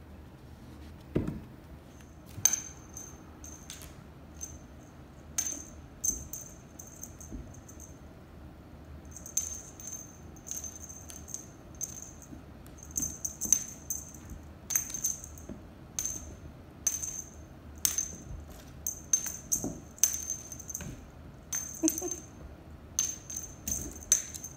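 Small jingle bell on a cat's string wand toy, jingling in quick irregular shakes as the toy is flicked and swatted. There is a soft thump about a second in.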